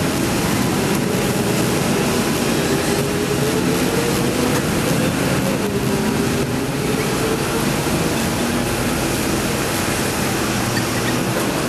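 Heavy-duty wrecker engine running steadily under a broad roar, its pitch wavering up and down a little about four to six seconds in, as it works the crane hoisting a wrecked semi-truck.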